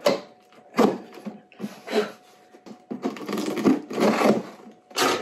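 Scissors cutting through the packing tape and flaps of a cardboard shipping box: a few separate short snips and scrapes, then a longer stretch of steady rasping cutting and cardboard rustling in the second half.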